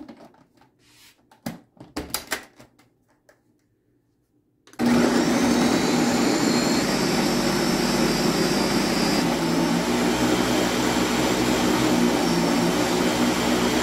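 Ninja countertop blender: a few clicks and knocks as the lid is fitted onto the pitcher, then about five seconds in the motor starts abruptly and runs loud and steady, blending spinach, apple and water into a green juice.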